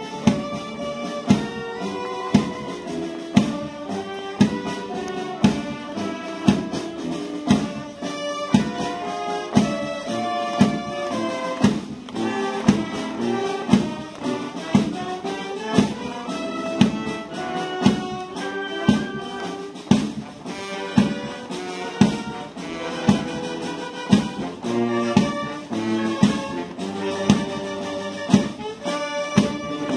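Instrumental band music led by brass, with a steady, even beat.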